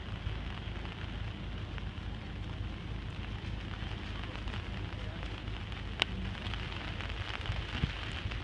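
Steady patter of light rain, with one sharp click about six seconds in.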